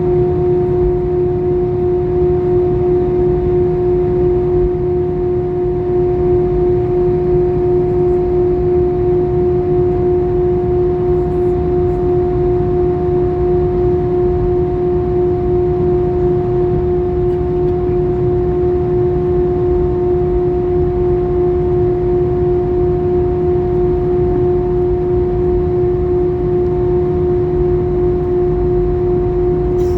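Airbus A320 cabin noise: the engines' steady drone, a constant low rumble with an unchanging humming tone over it, holding at the same power.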